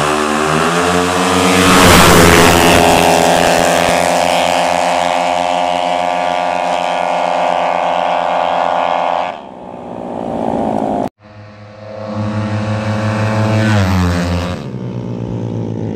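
Tuned 200cc Yamaha Mio drag scooters at full throttle: a single-cylinder engine is revved hard and launches about two seconds in, then holds high, steady revs down the strip until it cuts away about nine seconds in. After a short break another engine revs up, holds and drops back near the end.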